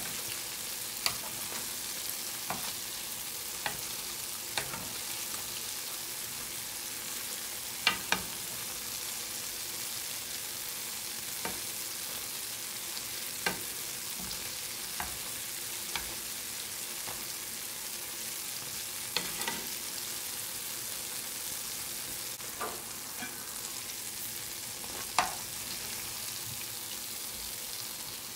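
Cottage cheese balls deep-frying in oil in a cast iron skillet: a steady sizzle, broken by scattered sharp clicks and taps every second or few, the loudest about eight seconds in and near the end.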